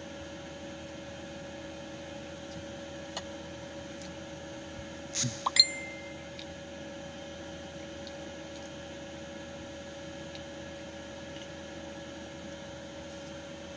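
Steady electrical hum, with a faint tick about three seconds in and a short clink about five seconds in that rings briefly.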